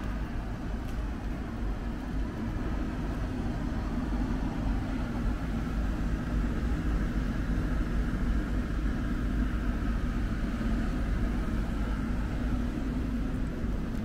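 Steady low rumble of city background noise, a traffic hum, growing slightly louder partway through.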